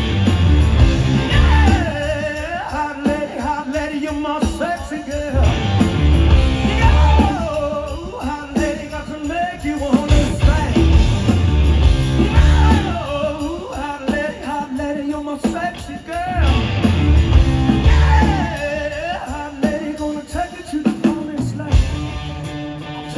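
Live rock band playing, with a male lead vocal singing phrases over guitar, bass and drums; the heavy low end swells at the start of each sung line, about every five or six seconds.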